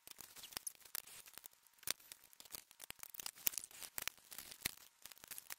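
Faint, irregular small clicks and rustles of fishing tackle being handled: light plastic and metal taps with no steady rhythm.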